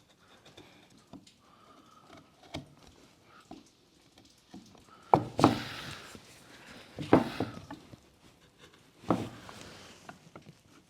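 Hand-carving a wooden bowl: sharp strikes of a carving tool into wood, the loudest about halfway through and again roughly every two seconds after, with quieter knocks between.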